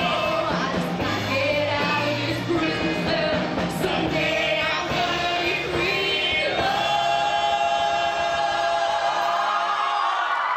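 Large mixed choir singing with a rock band of electric guitars, drums and piano, solo voices over the choir. About two-thirds of the way through, they hold one long sustained chord through to near the end.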